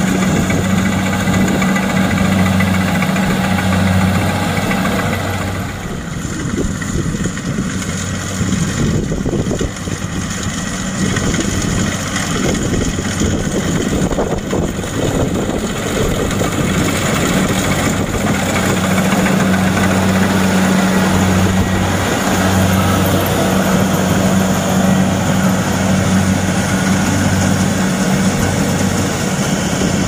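Kubota DC-70 PLUS rice combine harvester running steadily as it cuts and threshes rice: a diesel engine hum over the rushing noise of the header and threshing machinery. The engine hum weakens for a stretch in the middle and comes back stronger later.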